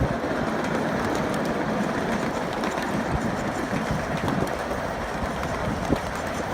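Ride-on scale live-steam train rolling steadily past, a continuous rumble of its many cars with scattered clicks of wheels on the track.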